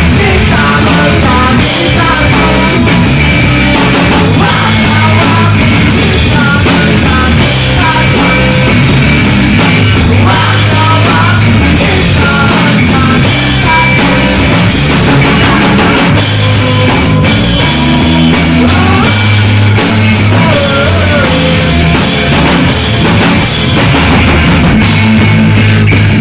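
A rock band playing loud with a drum kit, guitars and a singer, heard as a rehearsal of the song.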